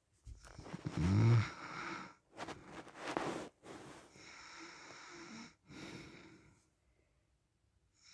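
A sleeping man snoring: one pitched snore about a second in, followed by noisy breaths that fade and stop, with the next snore starting at the very end.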